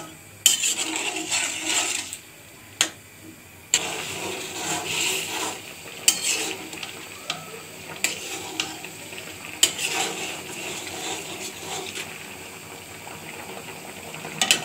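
A metal spatula scraping and stirring through fish and potato curry in a metal pan, with a sharp knock about three seconds in. Then the thin curry bubbles steadily at a simmer, with a few light taps of the spatula on the pan.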